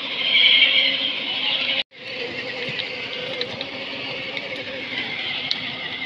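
Child's battery-powered ride-on toy jeep driving along a paved path, its electric motor running steadily under a constant high-pitched hiss. The sound cuts out completely for a moment just under two seconds in, then carries on the same.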